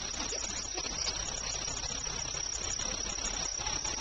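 Steady outdoor background hiss with a constant high-pitched whine running above it.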